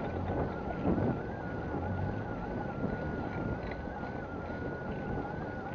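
Riding noise of a bicycle on a paved street: a steady rumble with wind on the microphone and a thin whine, and a short knock about a second in.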